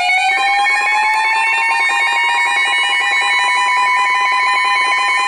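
Electronic alert tones: a pitch with many overtones glides up over the first couple of seconds and then holds steady, over a steady higher tone and a rapidly pulsing one.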